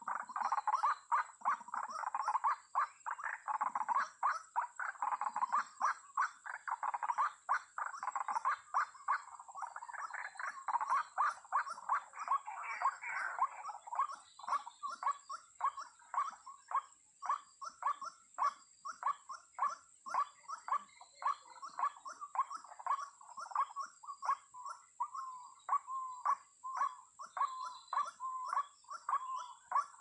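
White-breasted waterhen (ruak-ruak) calling over and over, short repeated calls at about two to three a second, the kind of calling used to lure the birds to a snare. A steady high-pitched whine runs underneath.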